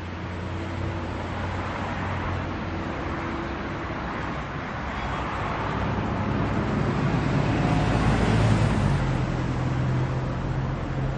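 Road traffic noise: a steady wash of car engines and tyres with a low engine hum, building gradually to its loudest about eight seconds in, where the hum shifts up in pitch, then easing slightly.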